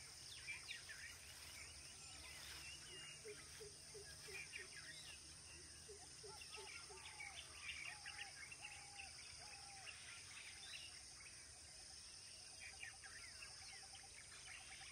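Faint birdsong from several birds: scattered high chirps, with short arched calls repeated about every half second from about six seconds in and a quick run of rapid notes near the end, over a steady high hiss.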